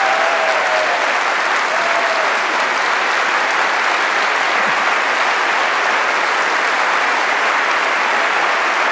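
Large audience applauding steadily: dense, sustained clapping from a packed hall, an ovation at the close of a speech.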